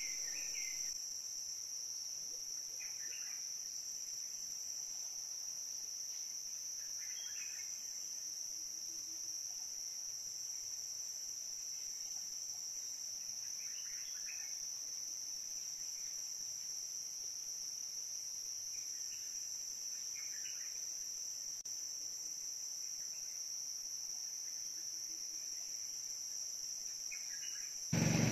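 Steady high-pitched drone of insects, with faint short chirps every few seconds. Just before the end a sudden loud low rumble cuts in.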